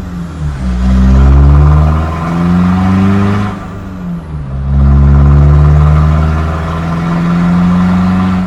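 Mazda BT-50 ute's engine, fitted with an aftermarket high-flow turbo, accelerating through the gears. Its note rises, drops at a gear change about three and a half seconds in, then climbs again.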